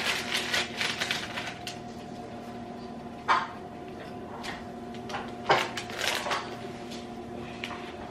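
Kitchen handling noises during noodle cooking: a run of light clicks and knocks, then two sharper knocks a couple of seconds apart, over a steady hum.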